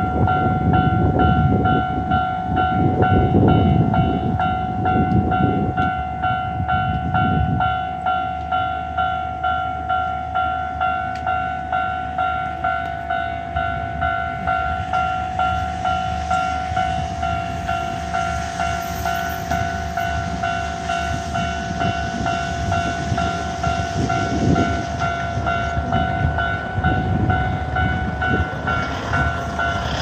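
Hankyu Railway level-crossing alarm ringing its steady electronic ding, about one and a half to two strikes a second, which the uploader takes as a possible sign that suspended train service is resuming. Low rumbling noise comes and goes under it, heaviest in the first seven seconds and again near the end.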